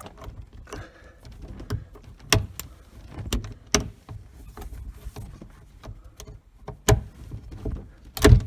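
Rear glass latch and window frame of a 1971 VW Karmann Ghia convertible top being worked by hand: a series of sharp clicks and knocks with rustling in between, the loudest knock near the end. The latch is hard to close against the tension of the top.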